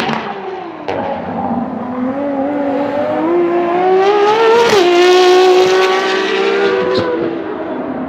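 Ferrari FXX K's V12 engine at full throttle: the revs climb steadily for about three seconds, drop suddenly nearly five seconds in, then rise gently again. There is a sharp pop about a second in and another crack about seven seconds in, after which it gets quieter.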